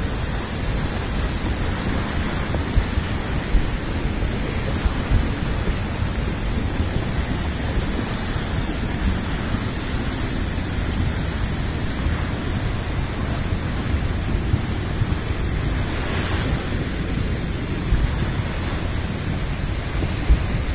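Flooded mountain stream (khad) rushing in a muddy torrent: a steady, unbroken noise of churning water.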